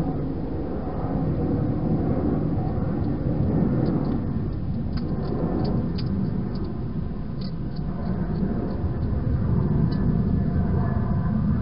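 A steady low rumble, with a scatter of small clicks and crunches in the middle from a hedgehog eating inside a plastic feeding box.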